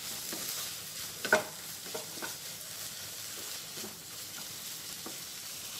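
A wooden spatula stirring a sweet corn and vegetable mixture in a non-stick kadai over a steady frying sizzle, with a few sharper knocks of the spatula against the pan, the loudest about a second in.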